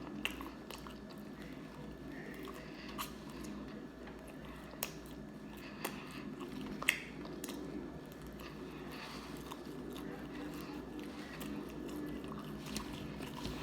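A person chewing and biting food close to the microphone, mukbang-style, with a few sharp clicks and crunches scattered through.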